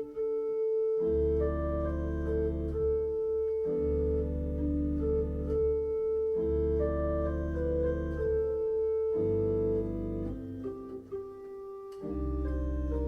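Church organ playing slow held chords, with deep pedal bass notes coming in and dropping out in phrases every few seconds.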